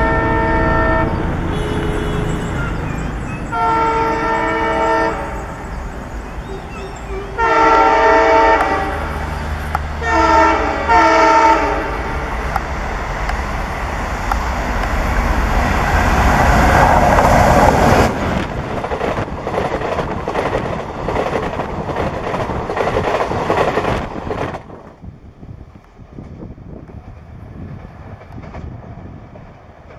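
Indian Railways diesel locomotive sounding its multi-tone horn in repeated blasts, about four or five in the first twelve seconds. The train then runs past with a rising rumble and clatter that is loudest a little past halfway. The sound drops off abruptly twice, leaving it much quieter near the end.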